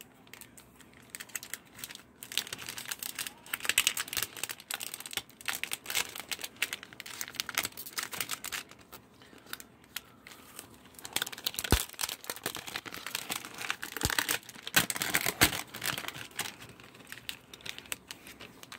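Clear plastic packaging crinkling and crackling as it is peeled open and handled, in irregular spells with a lull around the middle. A few sharp taps come in the second half.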